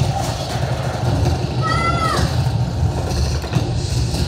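A child's short, high-pitched squeal about two seconds in, held briefly and then falling, over a steady low hum.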